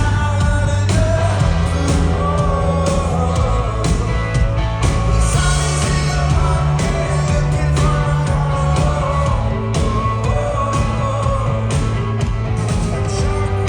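A rock band playing live, with a lead singer over bass and steady drum hits.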